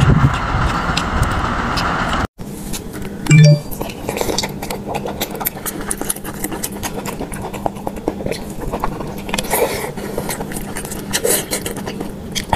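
Steady outdoor rumble and hiss for about two seconds. Then, after a cut, close-miked wet chewing and biting of spicy octopus, with many small irregular clicks and squelches. A short, loud, low-pitched blip comes about a second after the cut.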